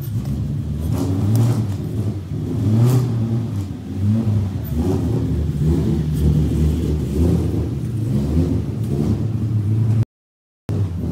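Nissan 350Z's 3.5-litre V6 running, the revs rising and falling unevenly. The sound cuts out completely for about half a second near the end.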